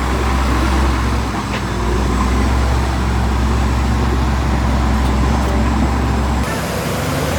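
Heavy earthmoving machine's engine running steadily with a strong low drone; the sound changes abruptly about six and a half seconds in, as the low drone drops away.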